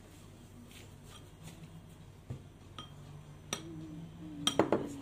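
Utensils clinking against mixing bowls: a single clink about three and a half seconds in, then a quick cluster of sharp, louder clinks near the end.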